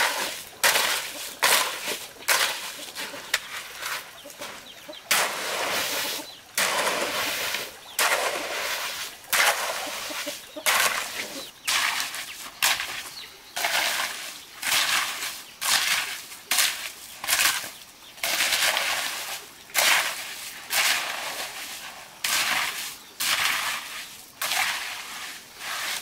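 Metal hoe blade scraping and dragging through loose crushed stone gravel in repeated strokes, about one a second, as the gravel is spread and levelled.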